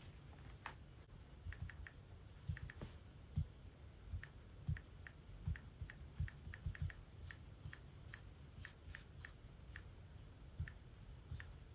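Light, irregular clicks and taps of an Apple Pencil Pro on an iPad Pro's glass screen, about one or two a second, with soft low thumps of handling.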